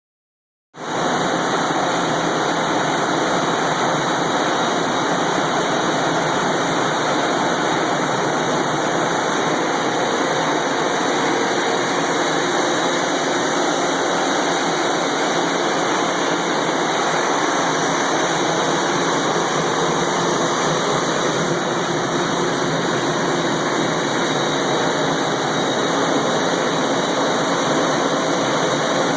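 Ingersoll Rand SSR XF150 rotary screw air compressor running steadily: a loud, even hiss and whir with faint steady tones.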